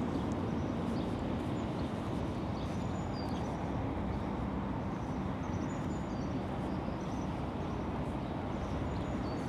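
Outdoor town ambience: a steady low rumble of background noise, with faint, short bird chirps now and then.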